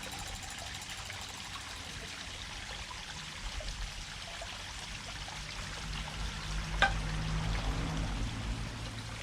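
Water trickling and running steadily, as from a small stream or a pond inflow. A faint low hum joins in midway, and there is a single sharp tick about seven seconds in.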